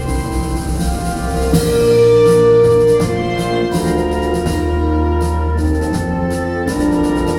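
Music played back on a hi-fi system through Grundig Super HiFi Box 2500 loudspeakers: held organ-like keyboard chords over a steady bass line, with light cymbal taps. The chords change every second or two.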